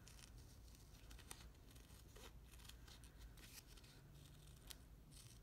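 Faint, irregular snips of small scissors cutting through fabric fused to Steam-a-Seam fusible web, its paper backing still on.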